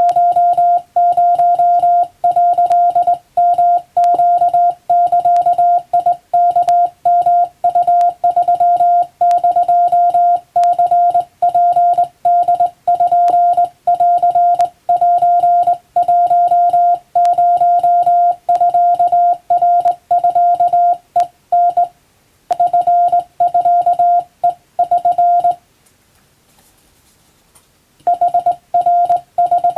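Hand-keyed Japanese (wabun) Morse code: a single steady tone switched on and off in short and long marks. Near the end it pauses for about two and a half seconds before resuming.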